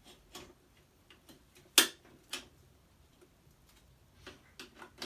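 Scattered small clicks and taps of a flatscreen TV's parts being handled and worked loose during disassembly, with one sharper, louder click a little under two seconds in and another soon after.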